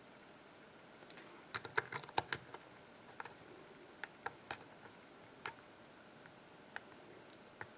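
Small metallic clicks of a hook pick and tension wrench working inside the keyway of a Sargent 6-pin pin-tumbler lock: a quick flurry of clicks about two seconds in, then single clicks spaced about a second apart as the pins are probed.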